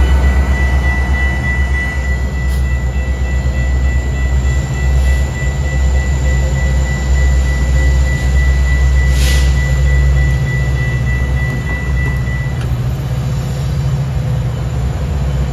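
Metra commuter train running close by: a heavy low rumble, with a steady high-pitched whine that stops about twelve and a half seconds in.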